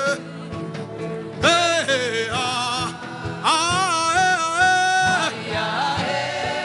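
A voice singing two long, wordless, ornamented chant phrases, the pitch wavering up and down, over background music with a soft steady beat.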